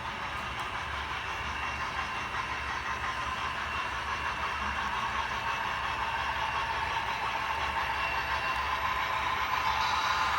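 HO scale model freight train pulled by a consist of model diesel locomotives, running steadily and growing gradually louder.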